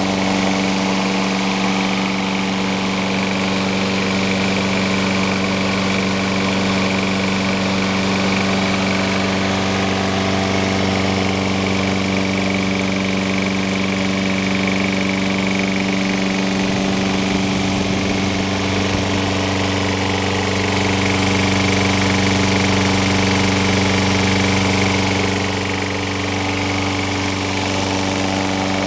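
Sears Craftsman 22-inch Series 650 walk-behind lawn mower's engine running steadily at a constant speed.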